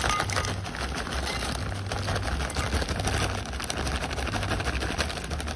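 Potato chips poured from a foil bag into a glass bowl: a dense rustling clatter of chips sliding and dropping, with the bag crinkling.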